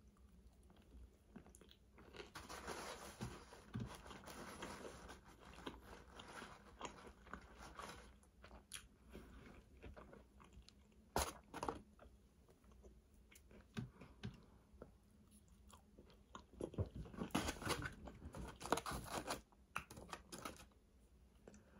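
A person chewing and biting into food close to the microphone, faint, with sharp crunchy bites. The chewing comes in two busier spells, with scattered crunches between them.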